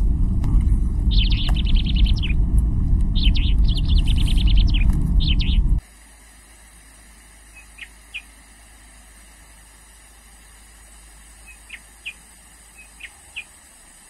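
Steady low rumble of a vehicle driving, with a bird's rapid trilled calls repeating over it. About six seconds in, the rumble cuts off abruptly, leaving a faint hiss with a few short, faint bird chirps.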